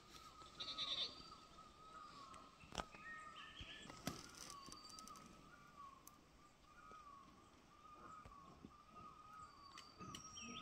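Faint outdoor ambience: a few short bird chirps, the loudest about a second in, over a steady wavering tone, with two light knocks a little over a second apart.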